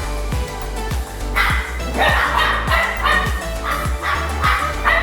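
A dog barking and yipping in short repeated bursts, several in a row from about a second and a half in, over background music with a steady beat.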